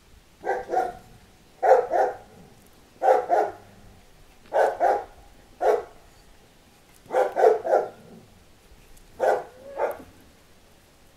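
Alano Español puppy barking in short bouts, mostly two quick barks at a time, about every one to two seconds, in play over a tug rope.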